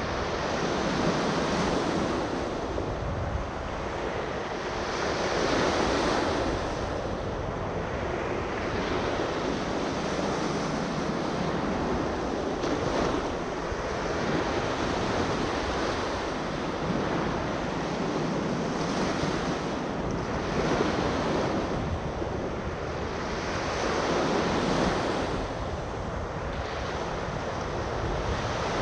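Small surf breaking and washing up onto a sandy beach, the wash swelling and easing every few seconds, with a low rumble of wind on the microphone.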